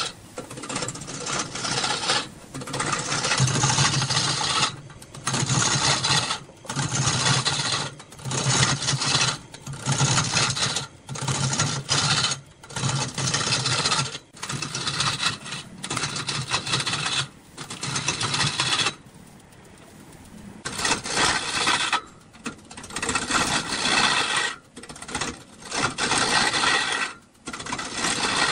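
Turning tool scraping and cutting into wood spinning on a lathe in a long run of passes about a second each with short breaks, a low hum under each cut. The cutting pauses for about a second and a half about two-thirds through.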